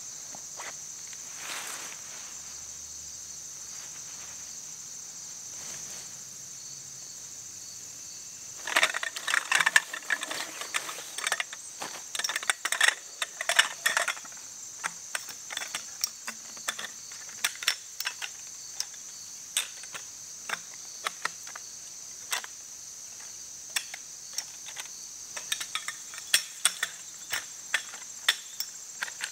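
Tent pole sections clattering and clicking together as they are unpacked and fitted. A burst of clinking starts about a third of the way in, then gives way to scattered sharp clicks. A steady, high buzzing insect chorus runs underneath throughout.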